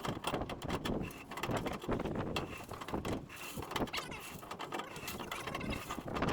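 Irregular metal knocks and scrapes of pipe wrenches being fitted to the jammed tailings auger shaft of a John Deere 4400 combine, over wind noise.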